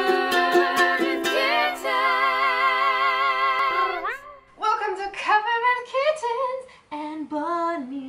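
Ukulele theme music: quick plucked strumming, then a long held note with vibrato that stops about four seconds in. From about five seconds a woman's voice takes over in a bending, sing-song line.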